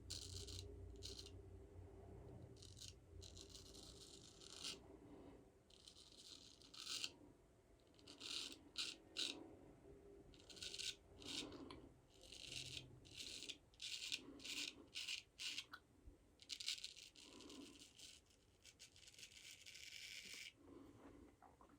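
Straight razor scraping through lathered stubble in a run of short, irregular strokes, each a brief rasping hiss.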